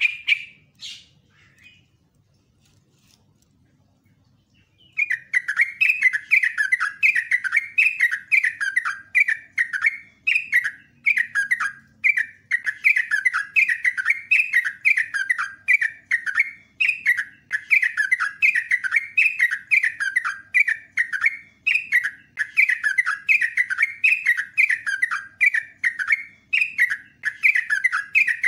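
Yellow-vented bulbul singing: a short call right at the start, a few seconds' pause, then from about five seconds in a fast, unbroken run of repeated falling notes, roughly two a second, the long rolling 'ropelan' song.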